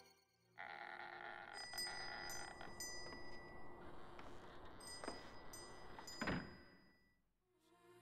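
Layered sound-design effects: a hissing texture starts about half a second in, overlaid with quick clusters of high, bright ticks and a faint steady high tone. A sharp knock comes about five seconds in and a louder thump about a second later, then the sound fades away.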